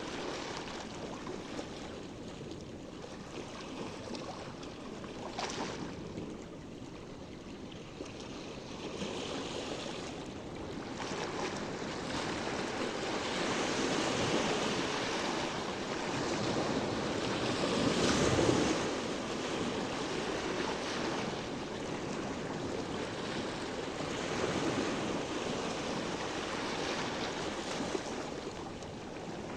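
Sea waves washing ashore, the surf swelling and falling back in slow surges, the loudest about eighteen seconds in.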